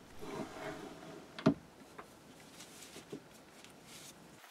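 Metal handling sounds at a lathe's four-jaw chuck as a workpiece is set true to a dial indicator: a short rustle, then one sharp knock about one and a half seconds in and a couple of lighter clicks.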